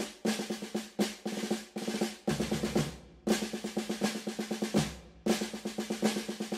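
Rhythmic percussion music: fast strikes with a ringing pitch, played in short phrases broken by brief pauses.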